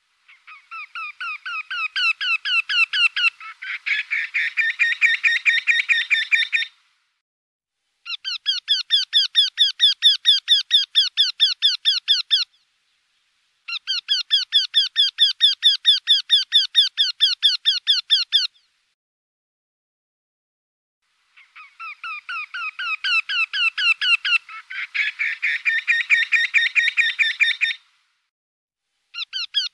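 Eurasian wryneck's song: long series of evenly repeated calling notes, each series lasting several seconds, separated by short silences. The first series grows louder as it goes, and in the first and fourth series a second series of notes overlaps partway through.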